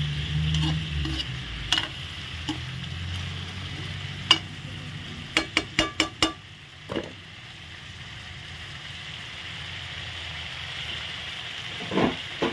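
Shrimp sizzling in a metal wok while a metal spoon stirs them, scraping and clinking against the pan. The clinks come singly a few times, with a quick run of them around six seconds in.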